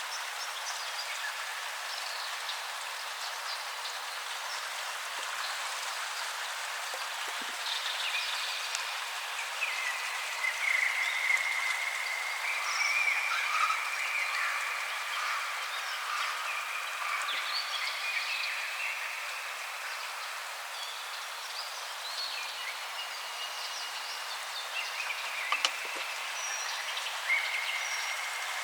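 Recorded nature soundtrack of a frog chorus: many overlapping trilling calls, each held from under a second to several seconds, over a steady hiss, with the low end cut away.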